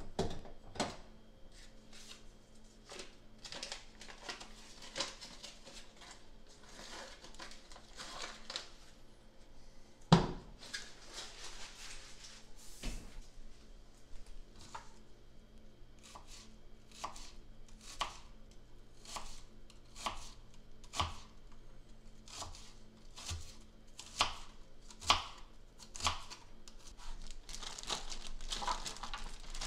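Kitchen knife chopping garlic on a plastic cutting board: sharp knocks at an uneven pace, one much louder knock about ten seconds in, then roughly one chop a second. Near the end a plastic bag crinkles as it is opened.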